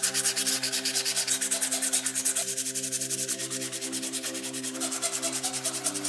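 Fast, even back-and-forth sanding of a Zippo lighter part, roughly eight strokes a second, over soft background music.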